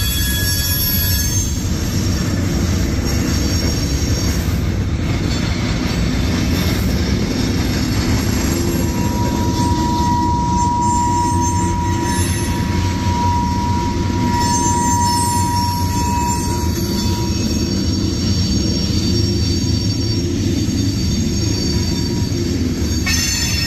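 Freight train's covered hopper cars rolling past on steel rails: a steady heavy rumble of wheels and trucks, with high thin wheel squeals and one long steady squeal through the middle.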